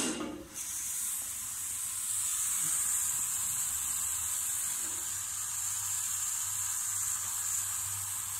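Water hissing steadily as it jets out of a small leak in a pressurised plastic water pipe, held at high pressure by a hand test pump while a leak-sealing chemical works on the hole. A brief knock at the very start.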